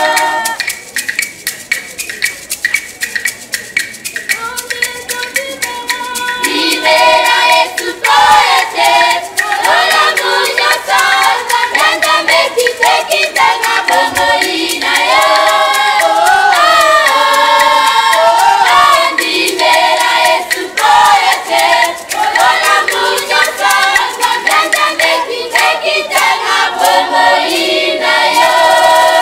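A women's choir singing a worship song over a fast, steady percussion beat. The singing is thin for the first few seconds, then many voices swell in about six seconds in.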